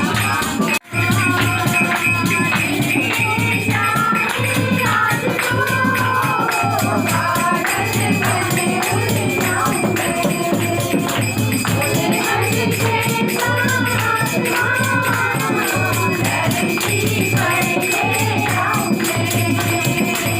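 Devotional kirtan: a group singing together with tambourine jingles and a steady drum beat. The sound cuts out briefly about a second in.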